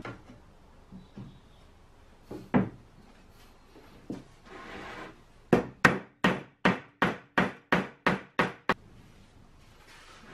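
Solid wood cot frame being knocked together at its joints: a few scattered knocks and a short scrape of wood sliding, then a quick run of about ten sharp taps, about three a second.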